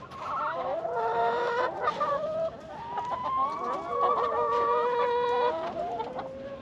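Several chickens calling, with overlapping drawn-out and clucking notes that die away about six seconds in.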